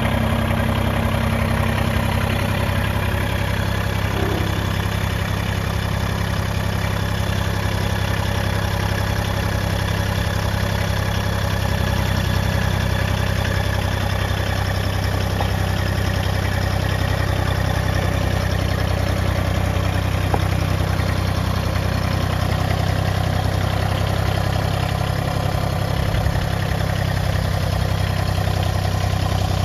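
Massey Ferguson GC1705 sub-compact tractor's three-cylinder diesel engine running steadily at low speed, with an even, unchanging drone.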